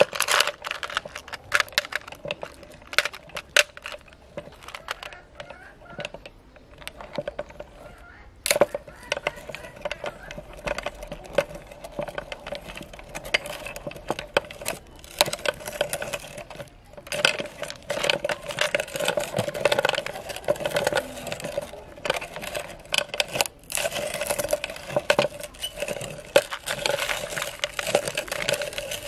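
Hard lollipop candy cracking and crunching in a cast-iron meat grinder. Scattered sharp clicks at first as the lollipops are handled, then dense, continuous crackling from about eight seconds in as the candy is ground.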